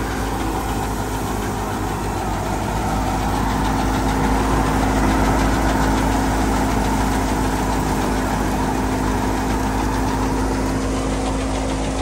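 Wheat thresher running steadily while cut wheat is fed into it, a constant mechanical din with a steady low hum.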